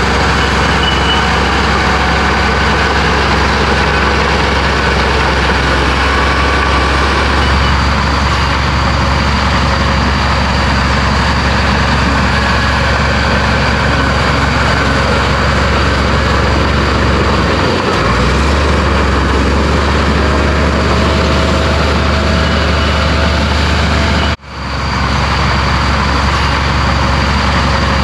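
Heavy diesel earthmoving machine running steadily under work, its low engine note shifting a couple of times. The sound cuts out abruptly for a moment about three-quarters of the way through, then picks up again.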